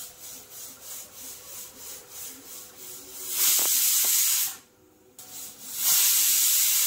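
Stovetop pressure cooker venting steam through its weighted whistle valve: a soft hiss pulsing about three times a second, then two loud hissing whistle blasts about a second each, the first a little past halfway and the second near the end. The whistles mark pressure reached as the chicken cooks under pressure.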